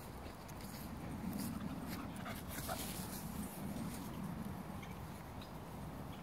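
Puppy making soft, low sounds that swell and fade over a few seconds.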